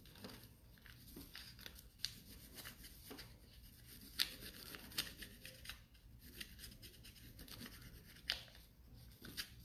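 Faint scratching of a wax crayon rubbed back and forth across paper in quick strokes, with a few sharper ticks.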